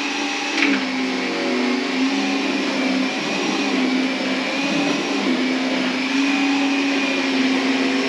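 Vacuum cleaner running steadily, its motor whine wavering slightly in pitch, with a brief knock about half a second in.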